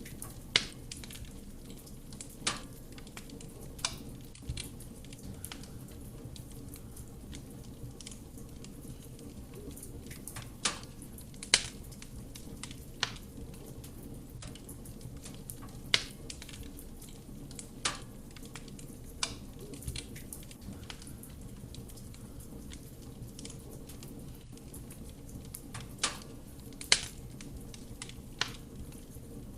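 Wood fire burning in a fireplace: a steady low rumble of flame with sharp crackles and pops from the burning logs, scattered irregularly, a dozen or so, the loudest about a second in, near the middle and near the end.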